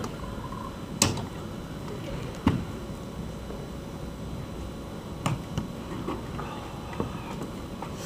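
Quiet room tone broken by a few short knocks and clinks, the sharpest about a second in and a duller one about two and a half seconds in, as a glass champagne bottle and a wine glass are handled and set down on a table.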